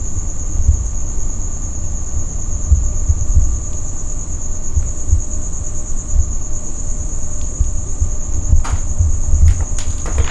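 Night insects trilling steadily at a high pitch, over an uneven low rumble, with a couple of faint clicks near the end.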